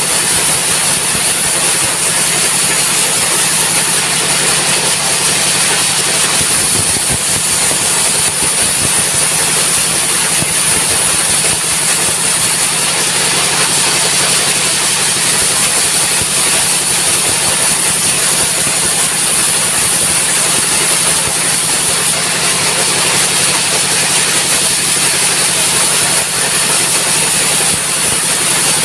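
Diesel engine of a circular sawmill running steadily at high throttle, with a constant high-pitched hiss over the low engine drone.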